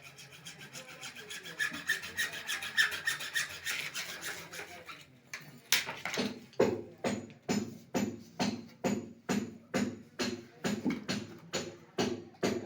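A hand tool scraping back and forth on a plumbing pipe, like filing or sawing. The first strokes are fast and light; from about six seconds in they turn into slower, heavier strokes, roughly two and a half a second.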